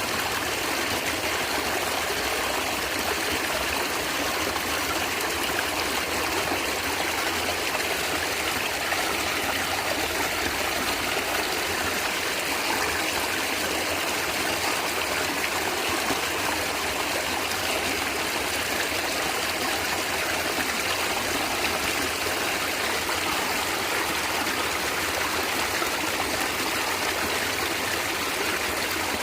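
Natural stream water flowing and gurgling, a steady, even rush with no breaks.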